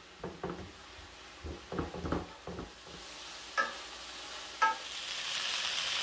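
Soft irregular thuds of ground-venison patties being pressed flat on a wooden cutting board, then two ringing knocks of a wooden spoon against a cast-iron skillet. Near the end, onions caramelizing in oil in the skillet sizzle as they are stirred, the hiss growing steadily.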